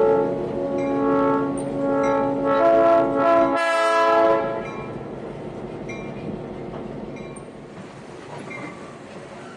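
Locomotive air horn sounding a chord of several notes in a series of blasts, loudest near the end of the sounding, then dying away about four and a half seconds in to leave a steady background rumble.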